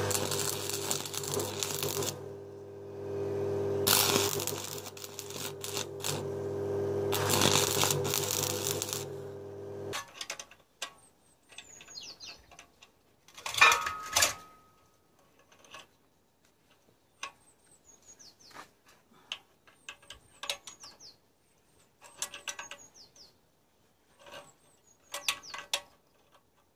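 MIG welder arc crackling and spitting in three runs of a few seconds each over a steady hum, the hum stopping about ten seconds in. After that come scattered light metal clinks and knocks, with one sharp loud knock about halfway through.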